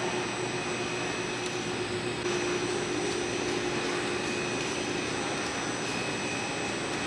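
Steady running noise of the concrete 3D printing equipment (printer, mixer and pump), an even hum with several constant whining tones.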